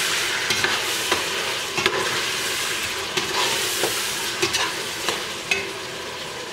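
Lamb pieces sizzling as they fry with spices in a stainless steel pot over high heat, the sizzle easing a little toward the end. A metal spoon stirring them clicks and scrapes against the pot at irregular moments.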